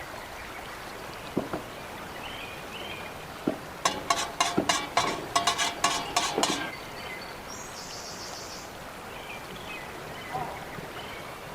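A quick run of sharp clinks and knocks with a slight ring, lasting a few seconds, over a steady outdoor background with a few short high chirps.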